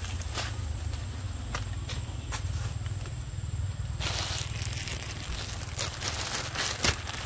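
Dry leaf litter crackling and crunching in a run of sharp clicks, the loudest crack near the end, over a steady low rumble.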